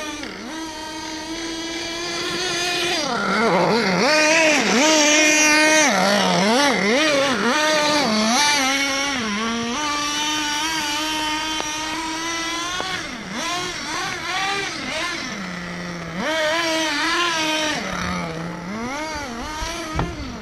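Small engine of a 1:8-scale RC car, revving up and down in quick swings for several seconds, then running at a steady high pitch and dropping lower at times near the end.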